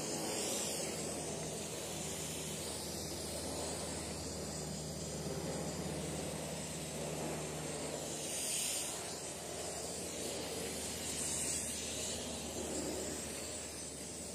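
Water spraying from a garden hose onto plants: a steady hiss that swells twice, once just past the middle and again a few seconds later, over a low steady hum.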